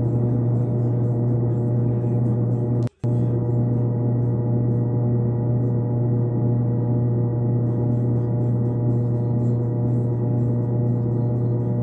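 A steady, unchanging drone: a deep hum with several higher ringing tones held above it, cutting out for a split second about three seconds in.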